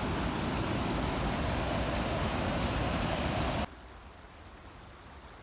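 Steady rushing of flowing creek water. About two-thirds of the way through it drops suddenly to a much quieter hiss.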